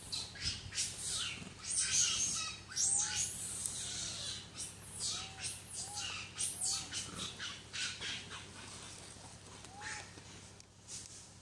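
Infant macaque giving a rapid series of high-pitched squeals, about a dozen, loudest about two seconds in and dying away a little before the end.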